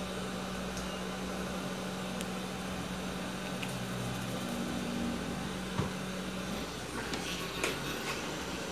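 Hot-air rework station blowing a steady humming stream of air while a surface-mount capacitor is soldered onto a TV panel board. The hum stops about six and a half seconds in, followed by a few light clicks.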